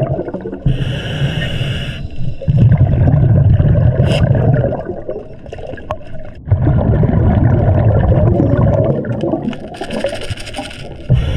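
Scuba diver breathing through a regulator underwater: a short hissing inhale, then a long, loud bubbling exhale, twice.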